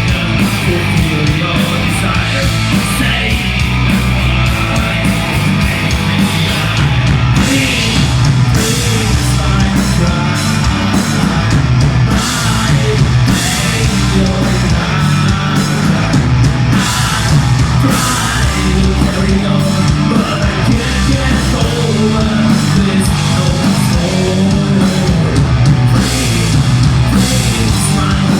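Heavy metal band playing live: distorted guitars, bass and pounding drums, with harsh yelled vocals over the top.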